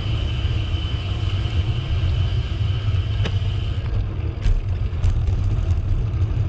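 Steady low rumble of riding a bicycle along a path: tyre and wind noise on the camera's microphone. A faint high steady tone runs under it and stops about four seconds in, with a few light clicks.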